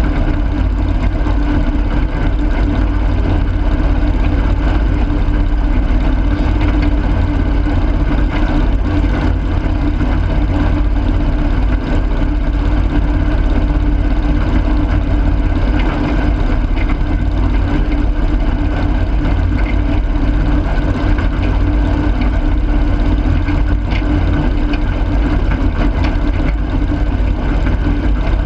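Garden tractor engine running at a steady speed, loud and close, with no change in pace.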